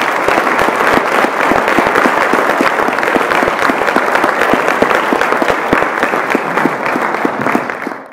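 Audience applause: many hands clapping densely and steadily, louder than the talk before it. It cuts off suddenly near the end.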